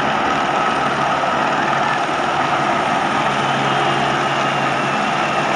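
A helicopter flying low overhead, its engine and rotor noise steady and continuous, mixed with the dense din of a huge crowd.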